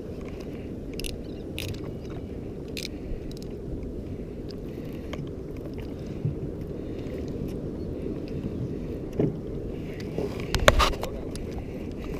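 Steady low rush of water moving against a small skiff's hull, with scattered light clicks from handling the fishing line and spinning reel, and a louder knock against the boat near the end.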